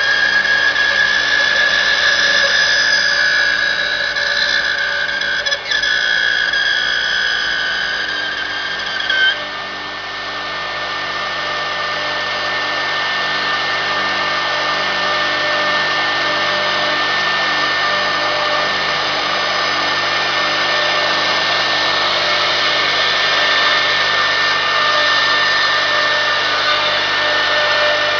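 CNC router spindle running at high speed and carving a wooden workpiece turning on a rotary axis: a steady high whine over cutting noise. About nine seconds in the whine changes pitch and briefly dips in level, then runs steady again.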